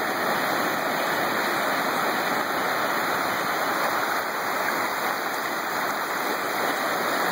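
Small ocean waves breaking and washing in the shallows, a steady rushing surf noise with no single wave or splash standing out.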